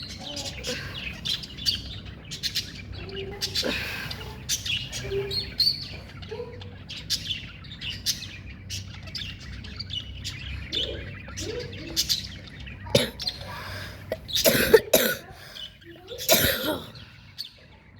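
Pet budgerigars chirping and chattering, a busy run of short high chirps, with a few louder, harsher calls about three-quarters of the way through.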